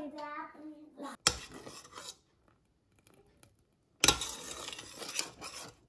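Kitchen dishes and cutlery clattering and scraping in two noisy stretches, about a second in and again for nearly two seconds from about four seconds in.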